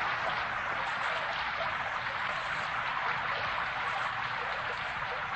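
Steady rainfall, an even hiss without breaks.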